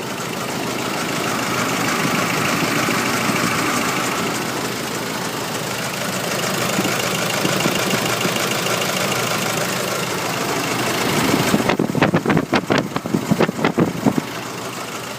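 Nissan YD25 four-cylinder diesel engine idling steadily with an unidentified noise whose cause is uncertain: injectors, timing chain, belts, pulleys or turbo. Near the end a rapid, irregular run of sharp knocks lasts about two seconds.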